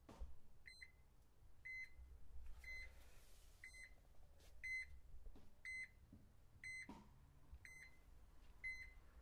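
ThermoWorks Smoke probe thermometer's alarm sounding short, high beeps about once a second: the meat probe has reached the 130°F set point.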